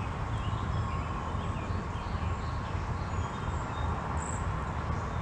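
Steady low rumbling outdoor noise with faint, scattered bird chirps.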